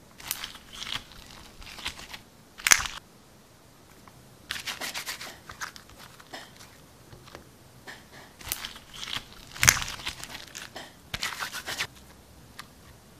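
White textured slime being squeezed, pulled apart and pressed by hand, crackling and crinkling in three spells, with a sharp louder crack in the first and the last.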